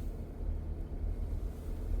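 Steady low rumble of a car being driven, engine and tyres on the road.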